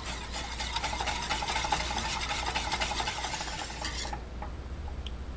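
Wire whisk beating a liquid cocoa-and-cream mixture in a stainless steel saucepan: a rapid, continuous scraping and clinking of the wires against the pan. The whisking stops about four seconds in, leaving a few faint clicks.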